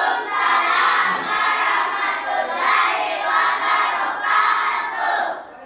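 A group of children's voices raised together, loud and continuous, with the pitch of the voices moving as in a chant or song.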